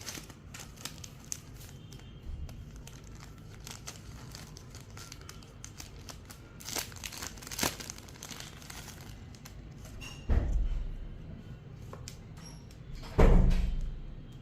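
Packaging crinkling and rustling as it is handled and torn open, with scattered small clicks and crackles. There are two dull thumps, one about ten seconds in and one near the end.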